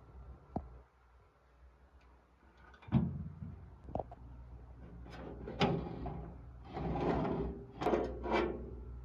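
A few sharp knocks, then several short sliding scrapes from about five seconds in, like drawers being pulled out and pushed shut.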